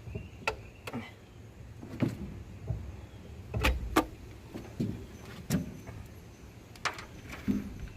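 Irregular metallic clanks and knocks of hand tools and loose engine parts being handled while a small-block V8 is taken apart, with the two loudest knocks close together about halfway through.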